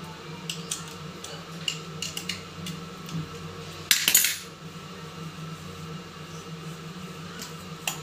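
Light metallic clinks of a steel tube spanner on the nuts and end plate of a table-fan motor, with a louder metallic clatter about four seconds in as the motor is turned over.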